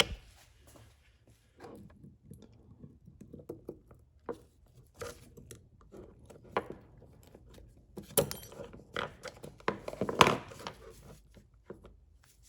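Small metal clicks and taps of a ratchet being taken apart by hand, as the snap ring is worked off its back with pliers. Scattered light handling clicks, with sharper clicks about eight seconds in and again about ten seconds in.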